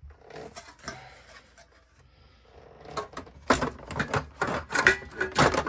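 Computer parts being handled and set into a typewriter's casing: faint rustling, then about halfway through a quick run of sharp knocks and clatters.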